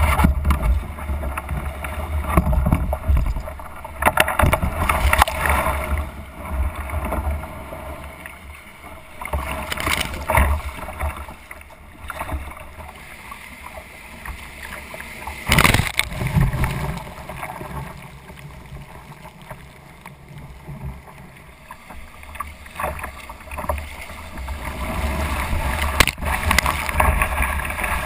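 Water splashing and rushing against a plastic sit-on-top kayak, heard close up from a GoPro mounted on its deck, under a steady low rumble of wind on the microphone. Sharp splashes come every several seconds, and near the end a breaking wave's whitewater rushes alongside the hull, louder and more continuous.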